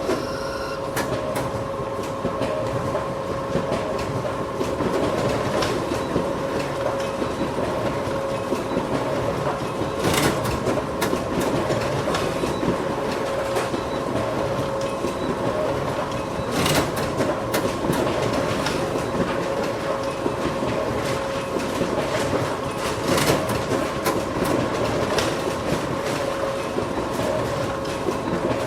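Photocopier running steadily: a constant whirring hum with a fine rattle, and a sharper clack about every six and a half seconds.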